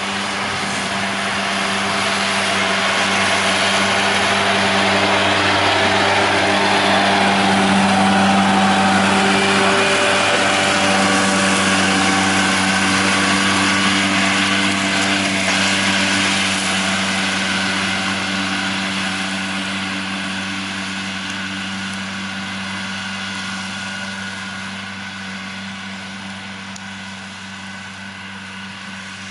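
John Deere 6145R tractor's six-cylinder diesel engine running steadily under load while its Kuhn disc mower spins and cuts grass, a steady engine hum under a wide whirring hiss. It grows louder as it passes close, about eight seconds in, then fades gradually as it moves away.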